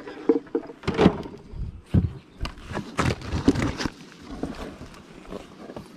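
Wooden beehive boxes knocking and scraping as the upper box is pried loose and lifted off the hive, with several sharp knocks in the first four seconds and quieter handling after.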